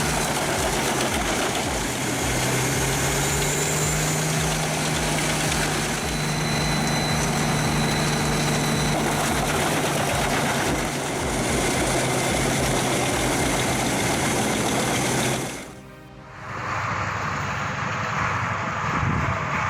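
Pezzolato PTH 1400/1000M drum wood chipper running, its Caterpillar C27 diesel engine and chipping drum making a loud, steady, dense noise with a steady engine hum. About three-quarters of the way through it cuts off abruptly, and a different, somewhat quieter engine sound takes over.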